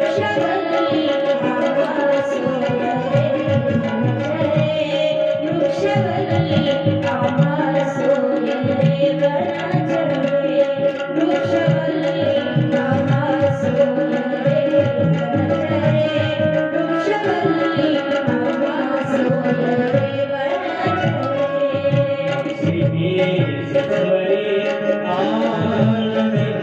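Instrumental interlude in a Marathi devotional bhajan: tabla playing continuously under a melodic accompaniment that holds a steady drone note.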